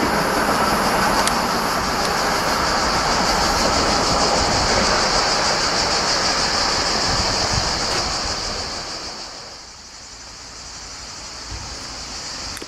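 A train running away out of sight, a steady rolling rumble and hiss with a high ringing band over it, fading out about eight to ten seconds in. Near the end a fainter sound starts to build again as the next train, an electric-hauled intermodal freight, approaches.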